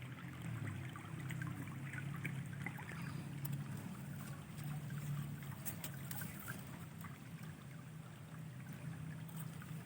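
Water flowing steadily in a stream, a low continuous rush with faint scattered ticks and trickles.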